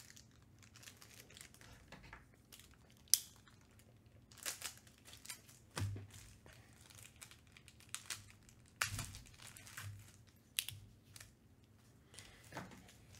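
Plastic crinkling and rustling at irregular intervals, with a sharp click about three seconds in: plastic card sleeves and trading cards being handled.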